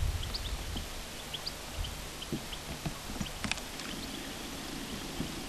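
Quiet outdoor background with a few faint, scattered knocks and clicks and short high chirps; no gunshot is heard.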